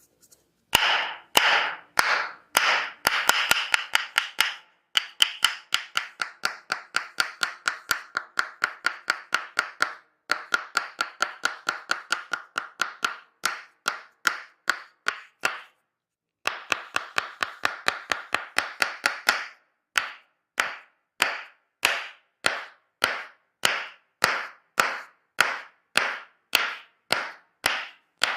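Tok Sen massage: a wooden mallet striking a wooden stick pressed against the body, giving sharp, woody clacks. A few slower strikes lead into fast runs of about four to five clacks a second, broken by two short pauses, and then slower strikes about two a second near the end.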